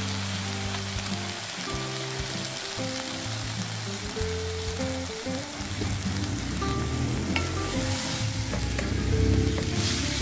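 Pork pieces and freshly added soy sauce sizzling in a hot non-stick wok, stirred with a wooden spatula near the end, with a few light clicks. Background music plays underneath.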